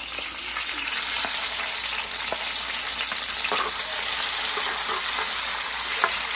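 Sliced onions sizzling steadily in hot oil in a wide metal pot while a metal spoon stirs them, with a few sharp clicks of the spoon against the pan. The onions have just gone into the oil to brown.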